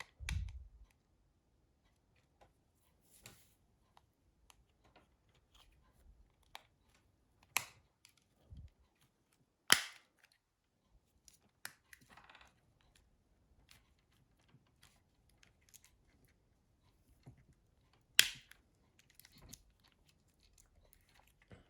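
Plastic front housing of a Nokia 6060 being fitted and snapped shut by hand: a dull knock at the start, faint handling rustle, and a few sharp plastic clicks, the loudest about halfway through and another near the end.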